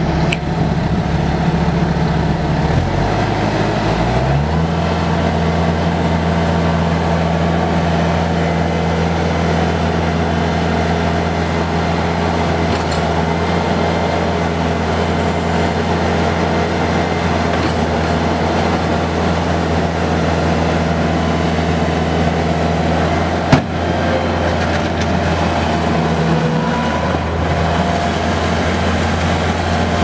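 Kubota 3.3-litre four-cylinder diesel of a Bobcat T300 tracked skid steer running steadily. Its engine speed dips for a moment about three seconds in and comes back up, and there is one sharp click about three-quarters of the way through.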